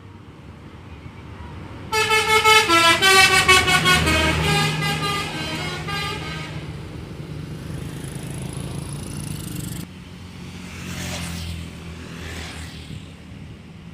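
A bus's multi-tone 'telolet' horn plays a quick run of stepped notes for about four seconds, starting about two seconds in, over the low rumble of the bus engine passing. It is followed by the rushing noise of passing traffic.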